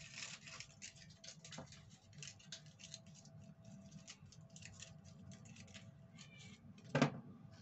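Chocolate packaging being handled: quick, irregular crinkling and ticking, with one sharper knock about seven seconds in.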